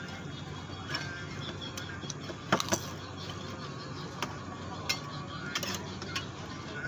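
Metal fork and spoon clicking against a plate of noodles while eating, a handful of sharp clicks from about two and a half seconds in, over a steady low hum.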